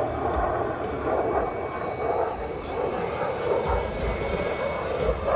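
Block 50 F-16 Fighting Falcon in flight, its General Electric F110-GE-129 afterburning turbofan making a steady rushing jet noise.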